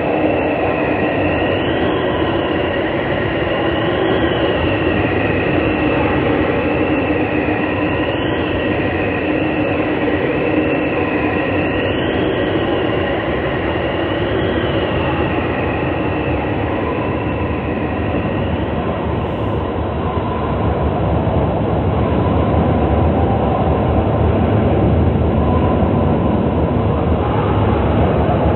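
A loud, continuous rumbling, rushing noise, with a high whistling tone that wavers up and down about every two seconds and fades out about two-thirds of the way through.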